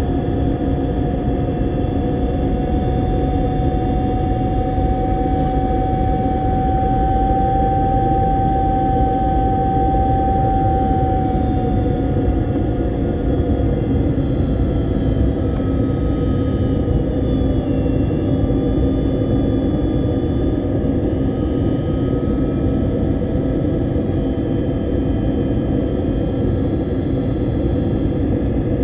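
Airliner cabin noise in flight: a steady rush of engines and airflow with a low hum and a higher whine. About twelve seconds in, the whine slides down slightly and fades.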